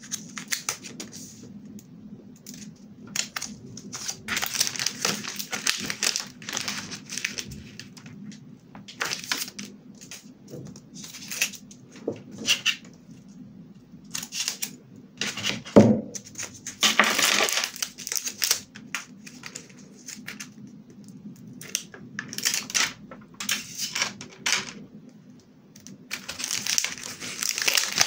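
Close-up crafting sounds: washi tape peeled and torn from its roll, scissors snipping, and crinkling of plastic film and foil. These come as a string of short rustles and crackles, with a sharp click about sixteen seconds in and denser crinkling near the end.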